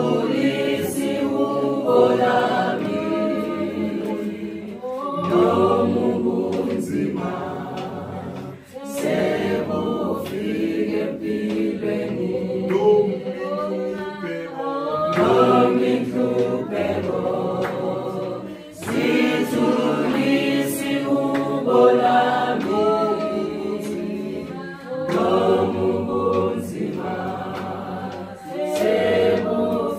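A choir singing a cappella in long phrases, with short breaks between them.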